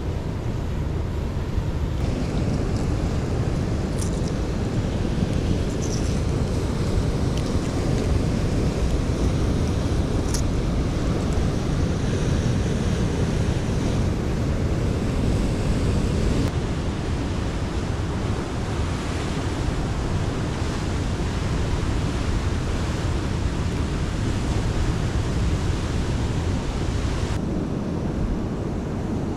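Ocean surf washing on the shore, a steady rushing with wind buffeting the microphone. Two faint short clicks come about four and ten seconds in.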